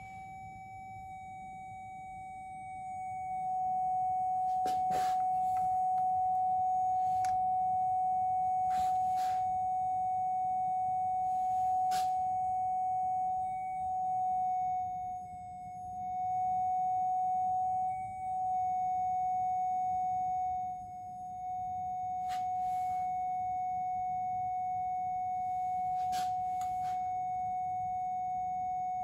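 A steady sine tone of about 750 Hz from a loudspeaker driving a resonance tube. It gets louder a few seconds in, then dips and swells several times with slight shifts in pitch as the frequency is tuned toward the tube's third resonance, near 743 Hz. Several sharp clicks sound over the tone.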